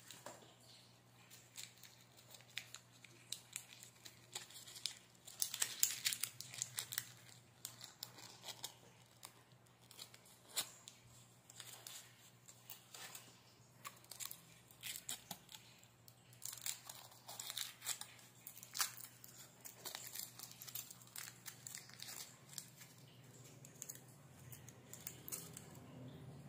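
Gold foil wrapper of a Ferrero Rocher chocolate being peeled off and crinkled by hand: a long run of small, sharp crackles and rustles, busiest around six seconds in and again around eighteen seconds.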